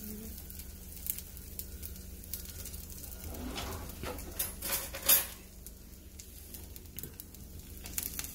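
Gentle sizzle of a suji batter pizza base cooking in an oiled pan, with a few taps and scrapes of a spatula and fork against the pan. The scrapes are loudest around four to five seconds in.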